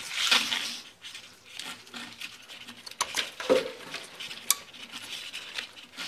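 Plastic taillight wiring-harness connectors being handled and plugged together: rustling of the wires with small rattles and a few sharp clicks, the sharpest about three and four and a half seconds in.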